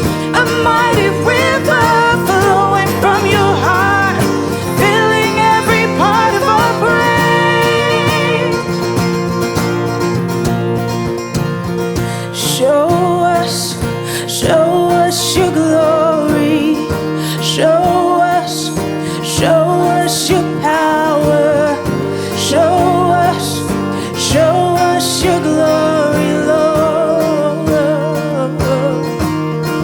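Acoustic worship song: acoustic guitar played under sung melody lines that bend and glide in pitch, holding steady at full level throughout.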